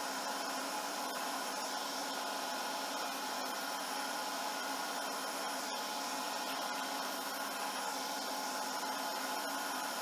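Lathe spinning a cast Alumilite resin pen blank while a turning tool cuts it to shape, played back at four times speed as a steady hiss with a few faint steady tones.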